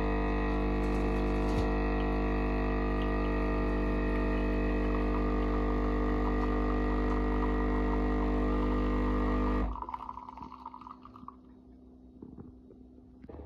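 Philips EP5144/70 automatic espresso machine's pump humming steadily while brewing an Americano, with coffee streaming into a glass mug. Nearly ten seconds in the pump cuts off suddenly, leaving only faint drips.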